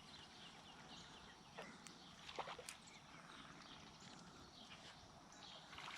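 Near silence: faint outdoor ambience with a few scattered faint chirps and ticks.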